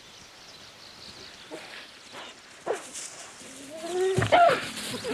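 Cheetahs squabbling over a fresh gazelle fawn kill: a few short calls, then a louder call about four seconds in that rises and then falls in pitch.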